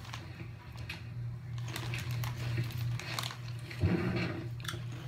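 Plastic snack bag crinkling and rustling in hand, with a steady low hum underneath and a thump about four seconds in.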